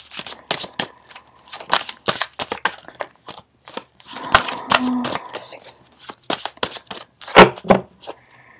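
Tarot deck being shuffled and handled by hand: a run of quick, irregular card snaps and flicks.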